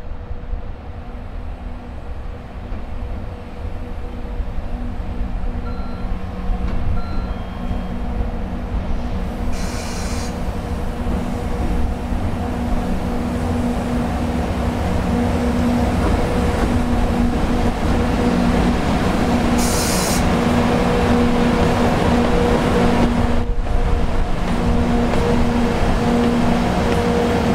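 Two EF64 electric locomotives coupled together, hauling a freight train, approach and pass close by. A steady hum sits over a low rumble of wheels on rail that grows louder throughout, with two short hissing bursts about ten seconds apart.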